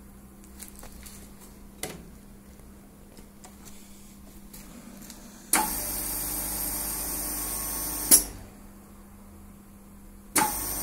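Fimtec F125 mullion end milling machine's cutter motor switching on about halfway through, running steadily with a high hiss for two or three seconds, then stopping with a sharp clack. It starts again just before the end. A few small clicks come in the first two seconds.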